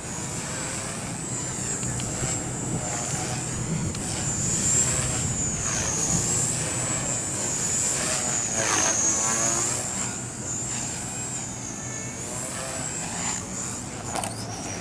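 Custom EP200 electric RC helicopter in flight, its high whine wavering in pitch as it manoeuvres, growing louder through the middle as it passes close and then easing off.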